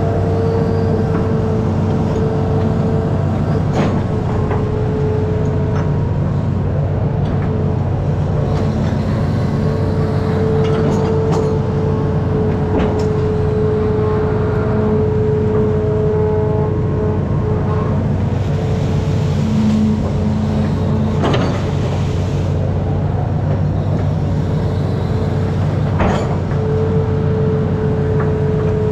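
Amphibious excavator's diesel engine running steadily under load, with a high whine that fades out and comes back and a handful of sharp knocks from the machine.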